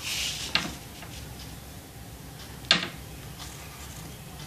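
Clear plastic circle template being slid and set down on drawing paper: soft rustling at the start, a small tick, and one sharp click near the middle as it knocks against the paper or board.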